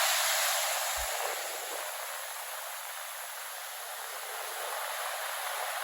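Surf washing up and draining back over wet sand: a steady hiss that eases over the first couple of seconds and swells again near the end.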